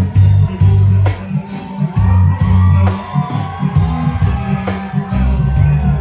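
Loud amplified party music with a heavy pulsing bass line, a sharp beat hit about every two seconds, singing and guitar.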